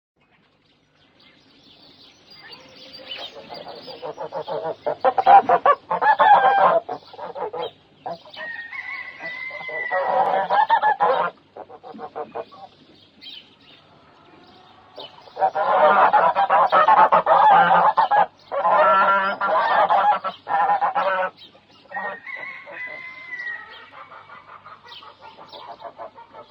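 A flock of birds calling together: many overlapping calls in loud bursts with short lulls, starting about a second in.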